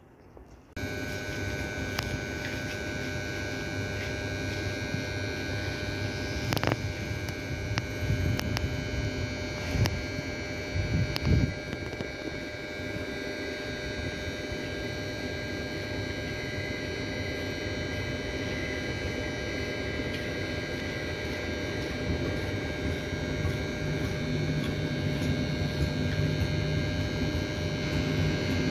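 VR night express train, a locomotive hauling blue sleeper cars, running into the station along the platform: a steady electric whine over a rumble of wheels, with a few sharp clicks from the rails. The rumble grows louder near the end as the cars roll past close by.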